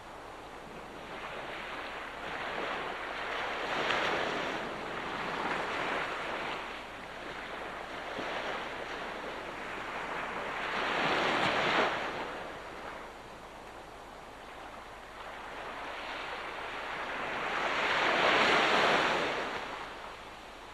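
Ocean waves breaking on the shore and washing back, swelling and ebbing as each wave comes in. Three larger waves break about seven seconds apart, the last the loudest, near the end.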